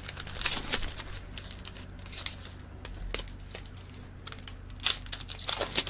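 Plastic being handled, rustling and crinkling in an irregular run of crackles, with a few sharper snaps about five seconds in.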